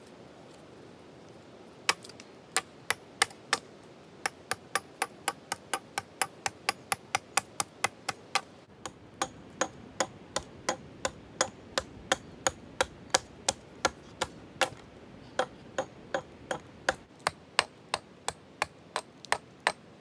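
A hand tool striking a hard object again and again with sharp knocks, about three a second, pausing briefly twice.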